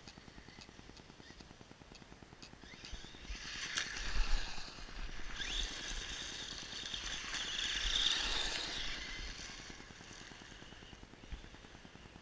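Traxxas Slash RC truck's electric motor whining with tyre noise, swelling a few seconds in as the truck drives, with a rising whine in the middle as it speeds up, then fading away.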